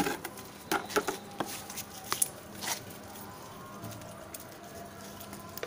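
Scattered light clicks, taps and rustles of hands handling things, most of them in the first three seconds, then quieter.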